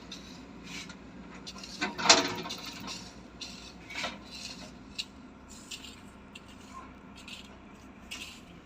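Irregular clinks, knocks and scraping rubs, the loudest about two seconds in, over a faint background hum.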